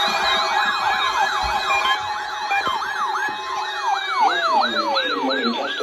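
Electronic siren in a fast yelp, its pitch sweeping up and down about three to four times a second, with a second tone gliding slowly downward through the second half, as if winding down.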